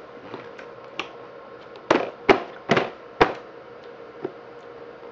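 Baby smacking his lips while eating cereal: four sharp smacks about half a second apart, starting about two seconds in, with a couple of fainter ones before and after.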